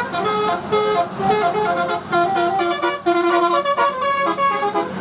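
Bus telolet horn, a Basuri-type multi-tone air horn, playing a quick tune of short stepped notes that cuts off near the end.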